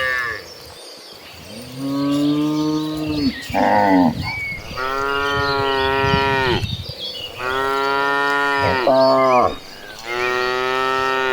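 Several cows mooing one after another, about six drawn-out calls at different pitches with short gaps between them, two of the calls brief.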